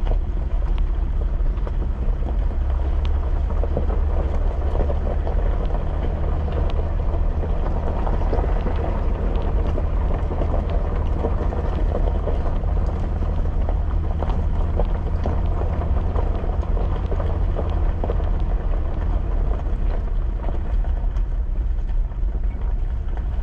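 Jeep driving on a dirt and gravel forest road, heard from inside: a steady low rumble of engine and tyres with light scattered crunching and rattling from the road surface.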